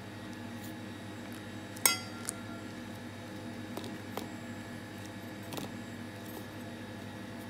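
A single sharp metallic clink about two seconds in, as the toothpaste tube knocks the stainless steel bowl, with the bowl ringing briefly. A few fainter clicks follow, over a steady low hum.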